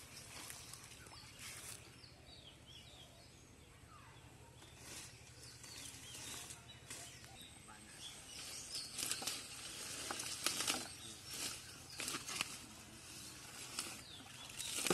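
Hands squelching and splashing through mud and shallow muddy water among water hyacinth, with wet plant stems rustling as they are pushed aside. The sounds are sparse at first and come thicker about halfway through.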